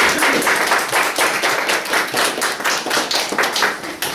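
Guests applauding: many hands clapping together in a dense patter that dies away near the end.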